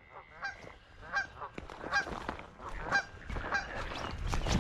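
Geese honking repeatedly, a string of short calls about one to two a second, with a low rumble rising near the end.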